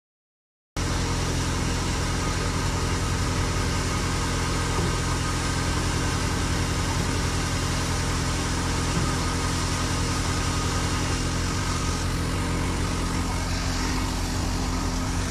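A tractor-driven Dogar grain thresher and the Fiat 640 tractor's diesel engine powering it, running at a steady working speed: a continuous even machine drone with a steady low hum. It cuts in suddenly just under a second in.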